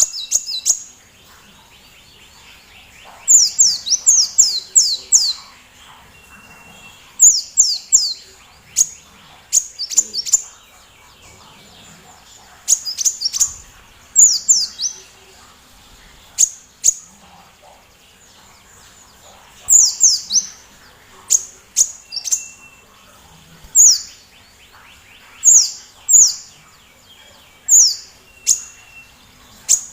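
A sunbird singing: loud runs of two to six quick, sharp, high notes, each sliding down in pitch, repeated every second or two with short pauses between runs.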